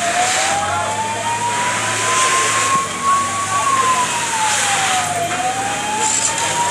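Fire engine's siren in a slow wail: one tone climbing for about three and a half seconds, falling for under two, then climbing again near the end, over steady background noise.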